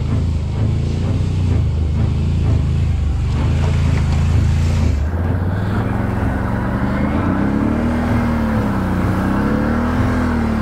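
Can-Am Renegade 1000 XMR ATV's V-twin engine running, its sound changing abruptly about halfway through. In the second half the engine pitch rises and falls several times as the throttle is worked.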